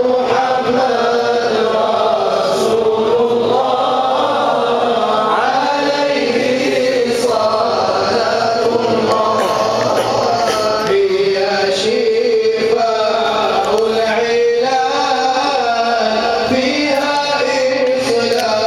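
Men's voices chanting an Arabic nasheed together, a continuous melodic chant.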